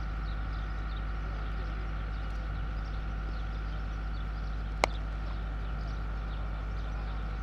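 A single sharp crack of a cricket bat striking the ball, about five seconds in, over a steady background hum.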